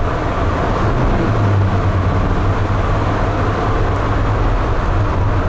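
Road and engine noise inside the cabin of a Ford Transit passenger van while it is driven, with no sound deadener fitted. It is a steady, loud rush with a low drone underneath, which is quite a bit of noise.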